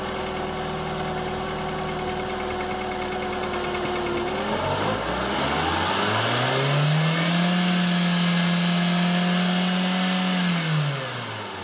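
Volkswagen 1.6-litre 8-valve four-cylinder petrol engine (BSE) idling steadily. About four and a half seconds in it is revved up smoothly, held at high revs for a few seconds, then drops back toward idle near the end.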